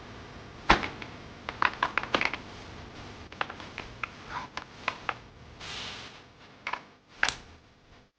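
Irregular sharp clicks and light taps of small parts and tools being handled on a workbench, with a short hiss at about six seconds.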